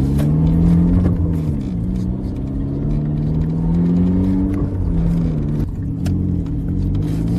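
Tata Indigo sedan's engine running as the car drives, its pitch rising and falling several times with the changing speed.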